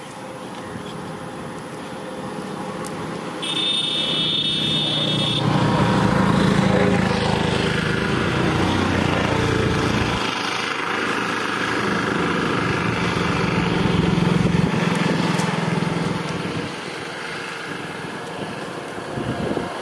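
A small engine running, growing louder a few seconds in and easing off near the end. A short high-pitched tone sounds a few seconds in.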